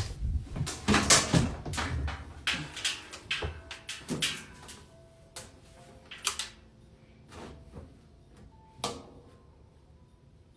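Household handling noise: a run of knocks, bumps and clatters, dense for the first few seconds, then thinning to a few isolated sharp clicks, the last about nine seconds in.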